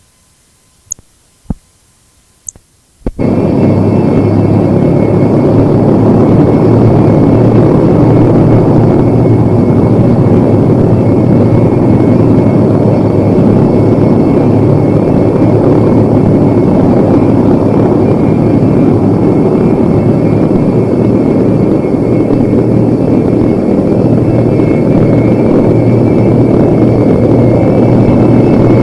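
Vintage tape recording of aircraft engine noise. After a few clicks and a faint steady tone, the engine noise cuts in abruptly about three seconds in and stays loud and steady, with a low hum underneath and a faint high whine above.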